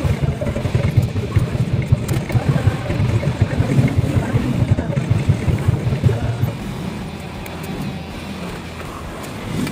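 Motorbike engine running in the street, with a dense low, pulsing sound that drops to a quieter steady noise about six and a half seconds in.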